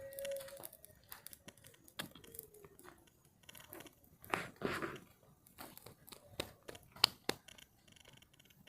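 Dry tinder and twigs at a small campfire: irregular crackles, snaps and rustling, with a sharper snap about seven seconds in.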